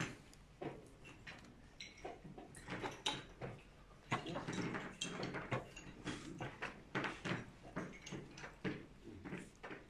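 Chess pieces set down on the board and a digital chess clock's buttons tapped during fast blitz play: a quick, irregular run of sharp clicks and knocks, coming thicker from about four seconds in.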